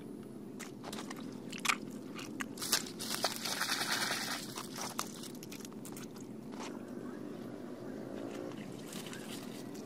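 Wet mud and plant stems being worked by hand: irregular crunching and crackling, with a louder cluster of crunches about three to four and a half seconds in, over a steady low background drone.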